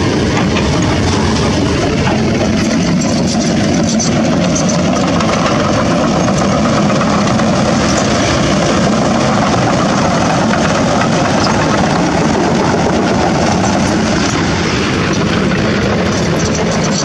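Heavy diesel engines of dump trucks and a Kobelco SK200 hydraulic excavator running steadily, a continuous low engine hum.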